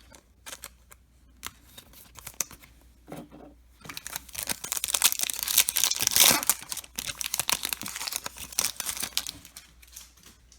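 Foil wrapper of a trading-card pack being torn open and crinkled: a few light taps, then a dense crackling rustle lasting about five seconds, loudest in the middle.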